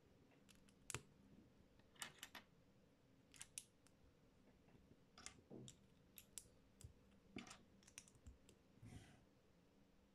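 Faint, irregular clicks and taps of small plastic Lego bricks being picked up and handled.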